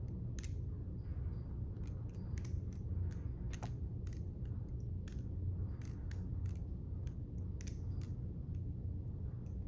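Defcon Knives Accel quick-change balisong with its trainer blade being flipped: irregular sharp clicks as the handles and blade knock together, over a steady low hum.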